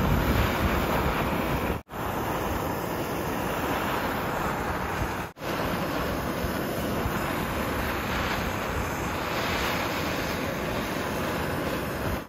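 Handheld propane torch burning with a steady hiss as it scorches the carved wood surface, broken by two brief dropouts about two and five seconds in.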